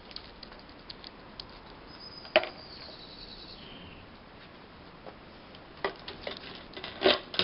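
Light knocks and clatter from a small plastic bucket on a rope: one sharp knock about two seconds in, then a run of bumps near the end as the bucket is hauled up against the side of the wooden deck.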